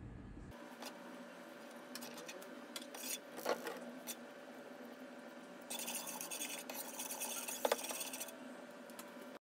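Metal spoon stirring a chili-garlic butter sauce in a nonstick frying pan, with scraping and a few sharp clinks of the spoon against the pan. The stirring grows busier from about six to eight seconds in, over a steady low hum.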